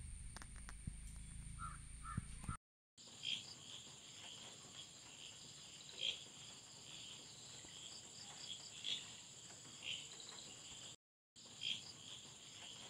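Crickets chirring in a steady, high-pitched drone, with short bird calls breaking in every second or two. The sound drops out briefly twice.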